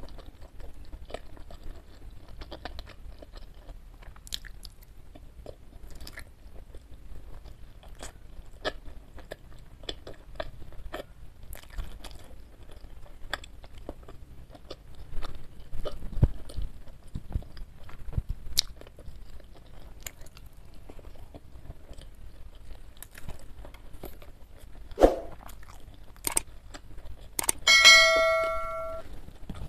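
Close-miked chewing of soft jengkol (dogfruit) curry with rice: wet mouth sounds and small smacks and clicks throughout. Near the end a sharper smack, then a short bright bell chime from a subscribe pop-up sound effect.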